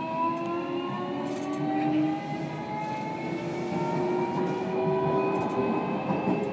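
Onboard running sound of a JR Kyushu 305 series electric train: the Toshiba VVVF inverter and permanent-magnet synchronous traction motors whine in several layered tones that rise steadily in pitch as the train picks up speed, over wheel and rail rumble.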